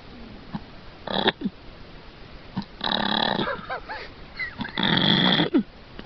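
A man snoring loudly in his sleep: three loud snores about two seconds apart, the first one short.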